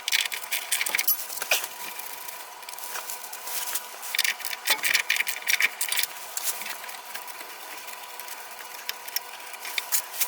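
Hand tools and metal fittings clinking and rattling in quick irregular clusters while the flexible fuel line is worked loose from the hard steel fuel line under the car.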